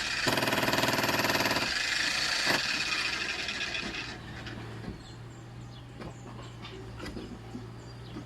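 Electric jackhammer running, hammering loudly for about the first four seconds, then dropping to a quieter low hum with scattered knocks.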